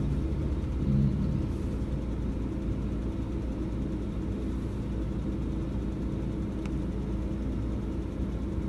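Steady low rumble of a car heard from inside its cabin, engine and road noise at low speed.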